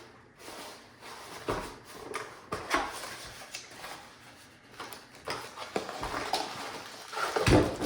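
Packaging and parts being handled during an unboxing: irregular rustles, scrapes and light knocks, with a heavier thump near the end.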